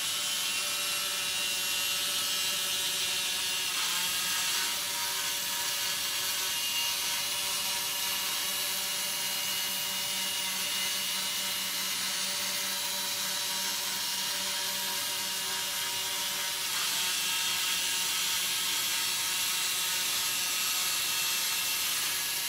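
Gakken Digirobot 01 line-drawing robot kit running on batteries: its motor-driven gearboxes give a steady mechanical hum as it drives a pen across paper, the tone shifting briefly about four seconds in and again near seventeen seconds as it changes course.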